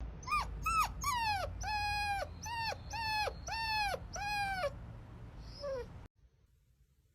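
Puppy whimpering: a run of about nine short, high whines, roughly two a second, each dropping in pitch at its end, fading out about six seconds in.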